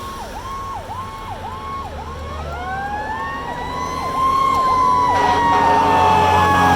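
Fire truck sirens: an electronic siren cycles in quick dips about twice a second, while a Federal Q2B mechanical siren winds up in a rising wail, peaks and begins to coast down slowly. The sound grows much louder a little after halfway.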